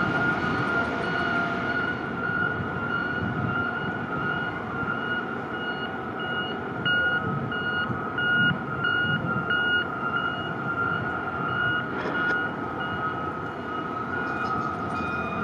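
Container-terminal warning alarm: a steady high-pitched tone with a higher beep pulsing about twice a second, over the low rumble of port machinery.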